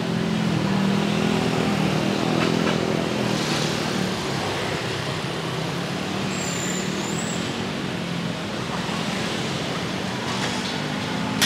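Busy city street traffic, mostly motorbikes and scooters with some cars, engines running steadily as they pass. Engine hum is strongest in the first few seconds, and a brief high squeak comes about seven seconds in.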